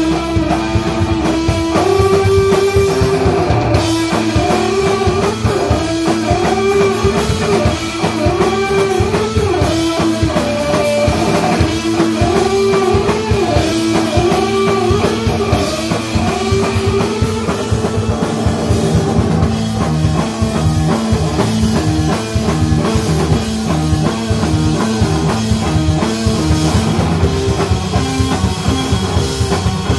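Live desert rock band playing an instrumental passage: a wavering, bending electric guitar line over a driving drum kit. About twenty seconds in, the music settles into a repeating riff.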